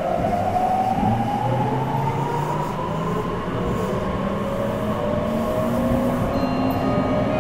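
Meitetsu 3100 series electric train accelerating, heard from inside the car: the whine of its traction motors and inverter rises steadily in pitch over the running noise of the wheels on the rails.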